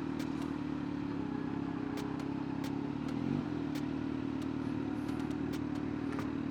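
Kawasaki Z900's inline-four engine running at low, steady revs, its pitch shifting briefly about halfway through, with faint sharp ticks now and then.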